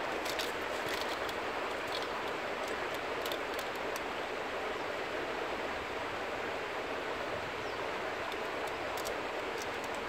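Six Mile Water river flowing: a steady rushing of water.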